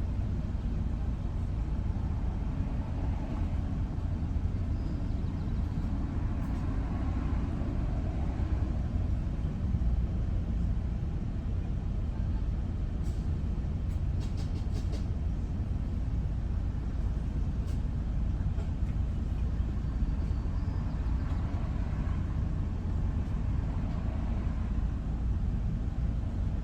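Steady low road and engine rumble of a vehicle driving along, with a few faint clicks about halfway through.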